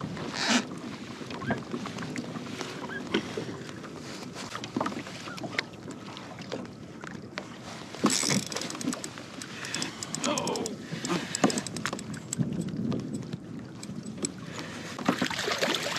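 Water lapping against a kayak hull, with scattered clicks and knocks from a spinning rod and reel being worked against a hooked fish.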